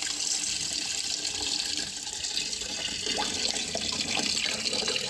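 Chicken pieces frying in hot oil in a pan, a steady sizzling hiss.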